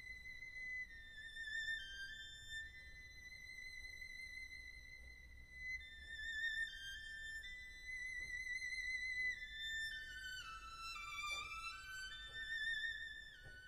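Background music: a slow solo violin melody in a high register, its held notes wavering with vibrato, with a quicker falling run of notes near the end.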